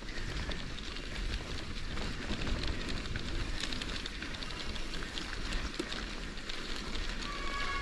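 Mountain bike rolling down a dirt trail: wind rumble on the camera microphone, with the tyres crackling over the ground and small rattles from the bike. A high-pitched squeal starts near the end.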